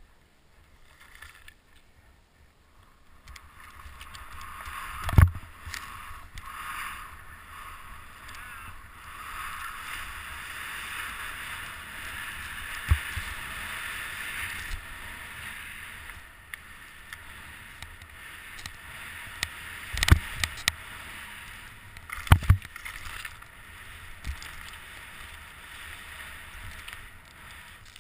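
Skis sliding through fresh powder snow, a steady hiss that builds a few seconds in, broken by a few sharp thumps, the loudest about 5 s, 20 s and 22 s in.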